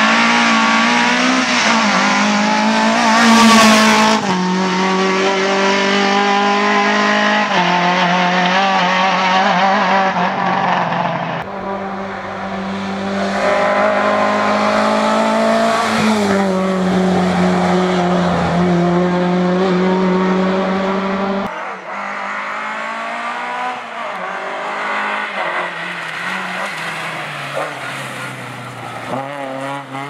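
Lada 2107 rally car's four-cylinder engine run hard at high revs, its pitch holding and then stepping with gear changes and lifts, loudest about four seconds in. The sound changes abruptly twice, at cuts between passes.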